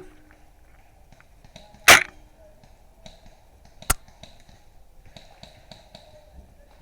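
Novritsch SSG24 spring bolt-action airsoft sniper rifle firing one shot about two seconds in, followed about two seconds later by a single sharp click.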